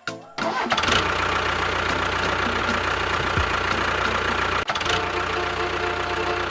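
Small engine running steadily after starting up, a dense mechanical rattle with a brief break about two-thirds of the way through.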